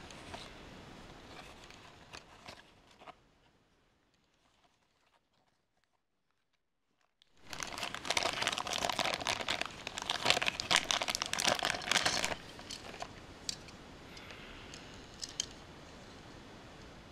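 Hands crinkling a thin clear plastic bag while unwrapping a small die-cast toy truck, the loudest crackling from about 8 to 12 seconds in and then softer handling. Before that, quieter rustling and small clicks of the cardboard box, then a few seconds of near silence.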